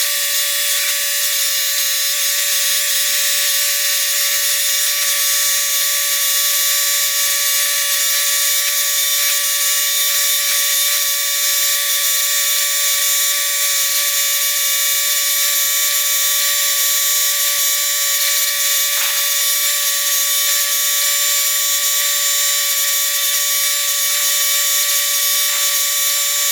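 A steady, high-pitched mechanical whine made of several fixed tones, with no low rumble, holding unchanged and cutting off suddenly at the end.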